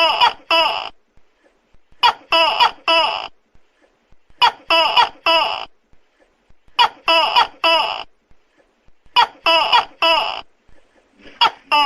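Tokay gecko calling: loud, sharp calls in groups of three, each group repeated at an even pace about every two and a half seconds.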